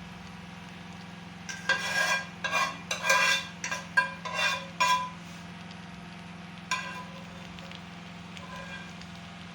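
Metal spoon stirring and scraping fried rice in a metal pot, a quick run of clattering, ringing scrapes for about three seconds, then one more knock against the pot.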